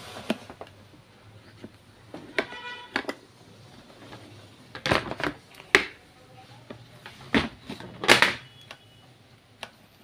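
Handling knocks and clunks around a plastic electric kettle: a string of sharp knocks, the loudest about five to eight seconds in, with a brief ringing tone near three seconds in.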